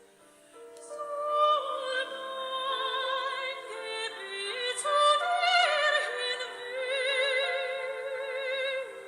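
Operatic classical singing with a wide vibrato on held notes, over a musical accompaniment. It starts softly after a short hush near the start and builds, loudest around the middle.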